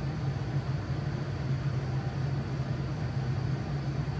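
Steady low background hum over a faint hiss, unchanging throughout.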